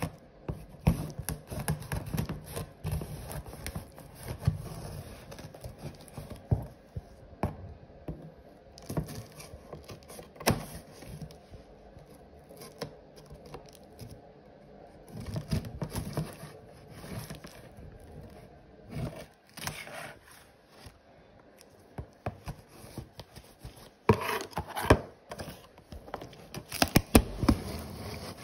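Scissors cutting and scraping through cardboard box tape and flaps, with irregular snips, scrapes and tearing sounds as the box is worked open.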